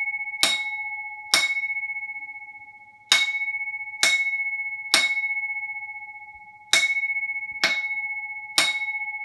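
Wheelock MB-G6-24 fire alarm bell sounding single loud strokes in the temporal code-3 pattern: groups of three strokes about a second apart, each ringing on with a steady tone, with a longer pause between the groups.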